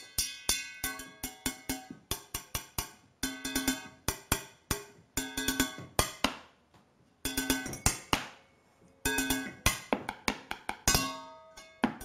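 Rhythmic percussion played with thin sticks on kitchen objects, an upturned enamel bowl, an aluminium pot and wine glasses: quick runs of sharp strikes, each leaving a short ringing tone, in phrases separated by brief pauses.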